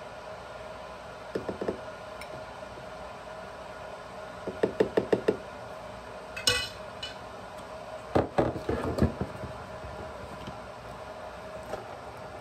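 A metal spoon scooping powder from a glass jar into a plastic blender cup, making several bursts of quick knocks and taps as it is knocked against the jar and cup. One sharp, glassy clink comes about halfway through.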